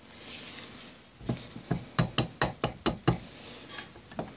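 A quick run of sharp knocks, about four or five a second, starting about a second in, as the Honda Rebel 250's cylinder block is tapped down over the pistons to work it past the rings held in band clamps. A soft hiss of rubbing comes before the knocks.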